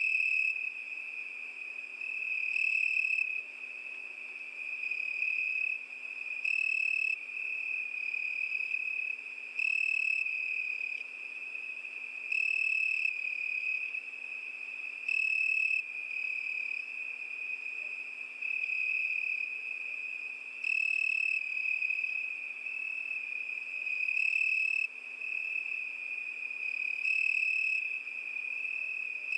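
Crickets chirring in a continuous high-pitched trill, with a louder pulse of song every few seconds.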